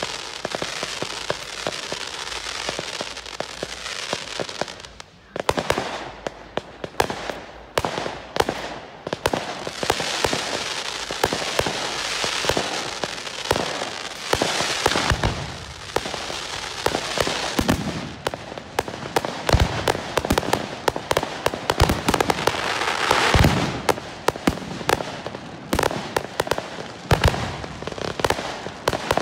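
Fireworks display: a constant hiss and crackle of rising fireworks, broken by many sharp bangs, with several deeper bangs of bursting shells in the second half.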